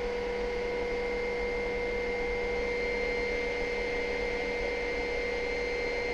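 Helicopter in flight, heard from inside the cabin: a steady drone with several constant whining tones that do not change.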